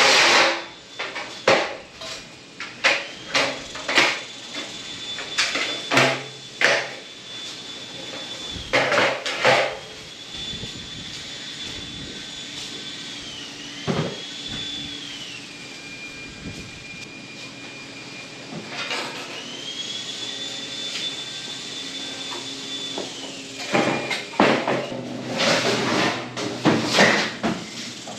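Repeated metallic clanks and knocks, with a steady high whine through the middle that drops in pitch for a few seconds and then rises back.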